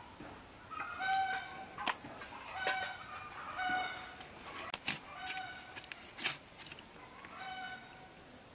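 Chickens calling, a series of short pitched calls repeating irregularly about once a second. Two sharp knocks about five and six seconds in are the loudest sounds.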